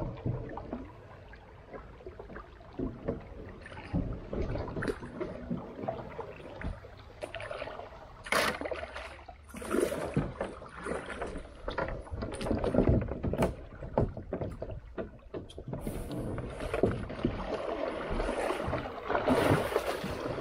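Creek water splashing and sloshing, with irregular knocks and rustles, growing louder near the end.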